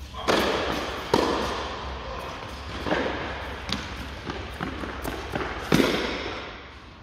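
Tennis rally: a tennis ball is struck by racquets and bounces on the court, making a series of sharp pops. Each pop rings with a long echo from the large hall, and the loudest hits come a little over a second in and near the end.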